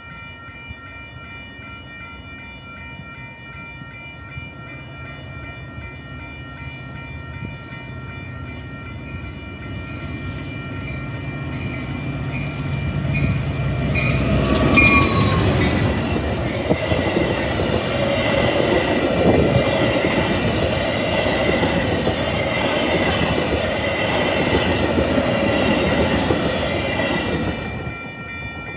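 A train passes at speed. Its noise builds for several seconds and peaks as the locomotive goes by, with a brief falling tone. The rattle of the cars then runs loud and steady for about fourteen seconds and cuts off sharply as the train clears. Steady high ringing tones sound throughout.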